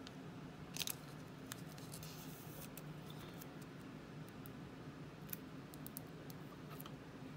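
Faint rustling and small scattered clicks of a trading card being slid into a plastic sleeve and set onto a clear plastic display stand, over a low steady hum.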